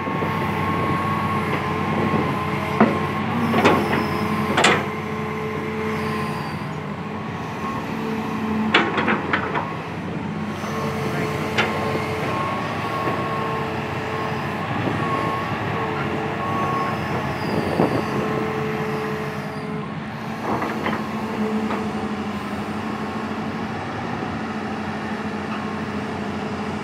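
Tracked excavator's diesel engine running steadily, with a whine that rises and drops away at intervals and several sharp knocks scattered through.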